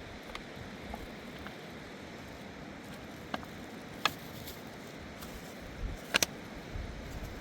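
Steady rushing of a river, with a few sharp clicks over it, the loudest a quick double click about six seconds in.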